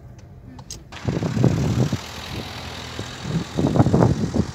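A car door opens about a second in, letting in outdoor traffic noise and the sound of the running car, with two loud low rumbles.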